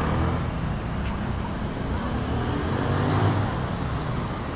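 Street traffic: a steady rumble of vehicle engines, with one vehicle growing louder a little past three seconds in.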